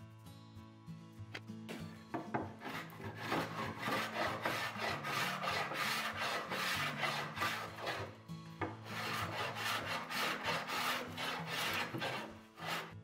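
Small hand plane shaving the edge of a wooden stringer in quick, repeated scraping strokes, with a short break about two-thirds of the way through. Background music plays underneath.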